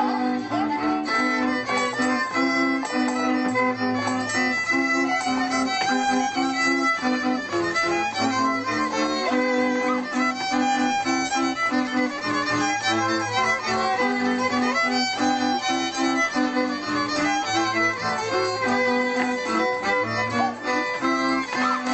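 Instrumental folk-style music led by a fiddle playing a quick run of notes over a pulsing bass line.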